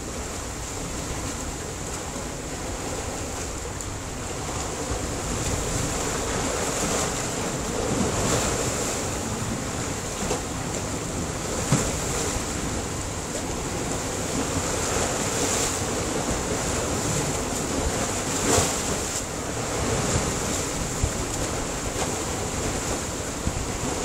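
Sea waves surging and breaking against a rocky shore: a continuous rush of surf that swells and ebbs, with a couple of sharper splashes.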